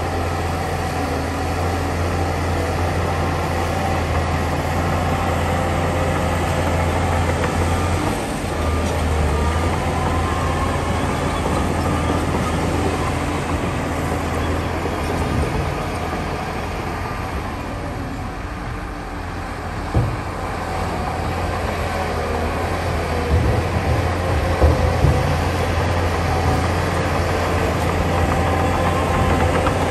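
Heavy diesel engines of a dump truck and a Shantui bulldozer running steadily with a deep low hum while the truck tips its bed. A knock comes about two-thirds of the way in, and a few more follow shortly after.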